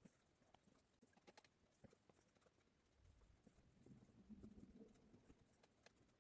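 Near silence, with faint scattered clicks and a faint low hum from about halfway through.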